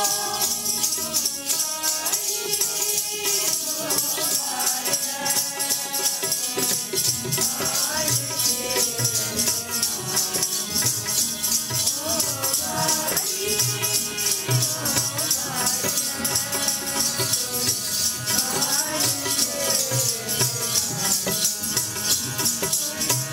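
Sikh devotional kirtan music: singing voices over a steady rattling hand percussion and a regular drum beat.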